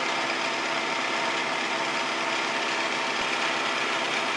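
Milling machine running steadily, its center-cutting end mill cutting a keyway slot into a metal shaft: a constant hum and whine that does not change through the cut.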